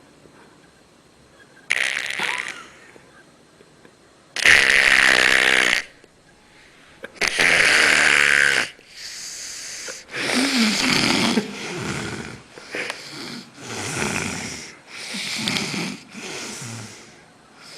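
A man passed out drunk snoring really loud: long, deep, pitched snores a few seconds apart, then a quicker run of shorter snores about one a second in the second half.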